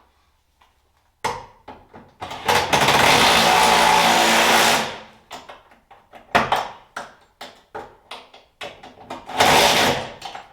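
A handheld power tool runs in bursts while bolts are driven in: one long run of about two seconds a couple of seconds in, several short blips of the trigger, then another run of about a second near the end.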